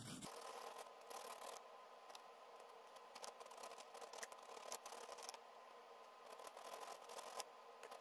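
Faint scratching and light clicks of folded sandpaper rubbing the small metal contacts inside a plastic clutch safety switch, cleaning black oxidation off them.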